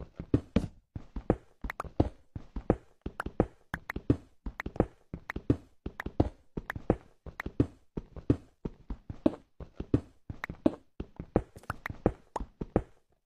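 Minecraft's stone digging sounds: a steady run of short, gritty taps, about four a second, as an iron pickaxe digs through stone and ore blocks, mixed with footsteps on stone.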